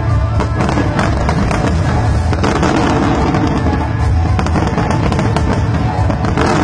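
Fireworks display at full intensity: a dense, continuous barrage of bursts and crackles, many bangs a second, with music playing underneath.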